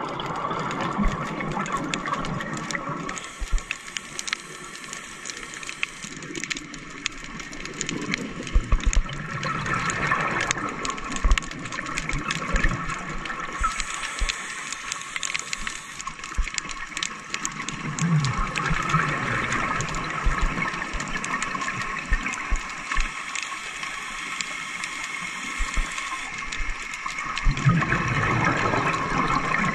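Scuba breathing heard underwater: a diver's regulator venting exhaled air as gurgling bursts of bubbles several seconds apart, with hissing between them. Scattered small crackling clicks run throughout.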